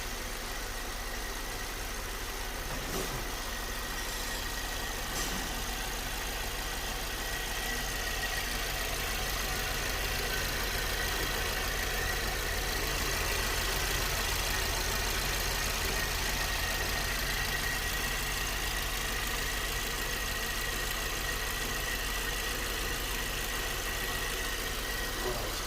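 VW Polo 1.2 TSI engine idling steadily, with a thin steady high tone running through it; the noise comes from the timing chain side, which the mechanic takes for a stretched timing chain.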